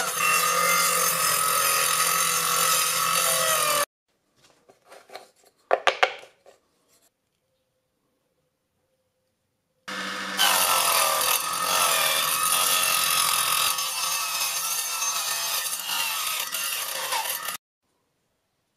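Angle grinder fitted with a saw blade on a homemade miter-saw stand, running and cutting through plywood for about four seconds before cutting off suddenly. After a few faint clicks and a quiet gap, it runs again for about eight seconds, slicing through a white plastic pipe.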